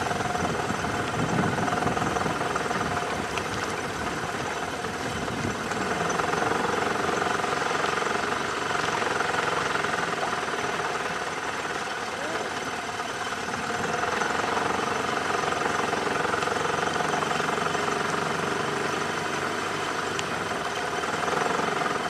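A boat engine running steadily at idle.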